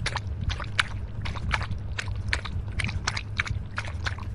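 Rhythmic lapping and slurping of water, like an animal drinking, about three or four laps a second, over a steady low hum.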